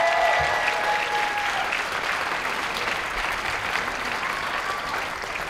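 Audience applauding, with a few held whoops and cheers in the first second or so, the clapping then slowly dying away.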